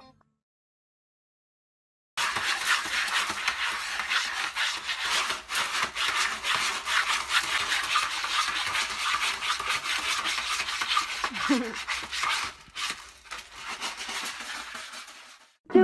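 After about two seconds of silence, a cat scratches and digs in a plastic litter tray of pellet litter: a dense, continuous run of quick scratching and rustling that stops just before the end.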